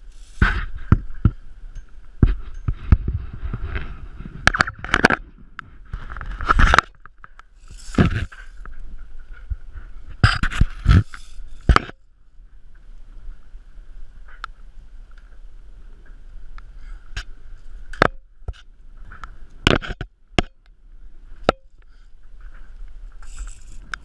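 Ropes, carabiners and harness hardware scraping and knocking against a yacht's mast and rubbing over the body-worn camera during a mast climb. Dense clusters of knocks and rubbing fill the first twelve seconds, then single sharp clicks come every second or two.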